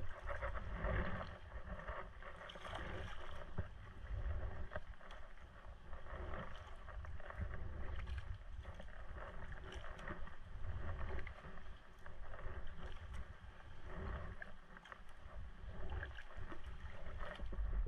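Sea kayak being paddled: the paddle blades dip and splash in the sea water, the sound swelling with each stroke every second or two.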